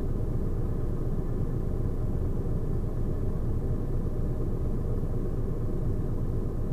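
Stationary lorry's diesel engine idling: a steady low rumble.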